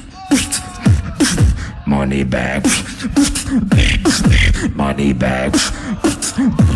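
Solo beatbox routine performed into a microphone: deep kicks that slide down in pitch, sharp snare-like clicks, and sung, hummed notes woven between them in a steady rhythm.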